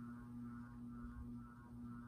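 Westinghouse ceiling fan giving off a faint, steady electrical hum. The owners put the noise down to its switch, the light kit's rheostat.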